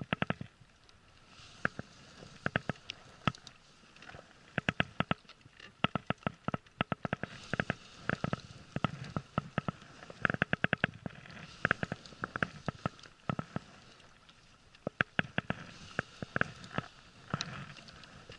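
Baitcasting reel clicking in short rapid runs of sharp ticks, again and again, while the rod is loaded by a large red sea bream.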